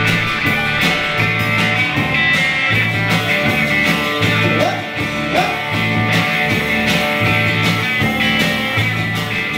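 Live rock band playing: strummed acoustic guitar and electric guitar over a steady beat.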